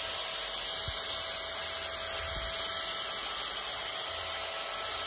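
Makita GA4030 angle grinder running free with no disc fitted: a steady whir and hiss with a faint steady whine.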